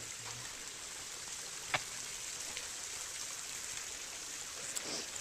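Steady rush of a stream's flowing water, with one sharp click a little under two seconds in.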